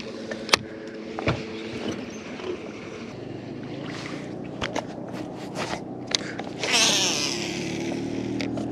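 Steady hum of a boat motor, with scattered clicks and knocks and a brief rush of noise about seven seconds in.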